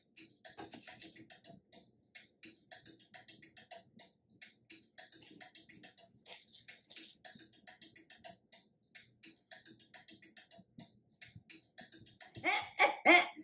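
Quiet beat-driven music, mostly a repeating percussive rhythm, with a few much louder hits near the end.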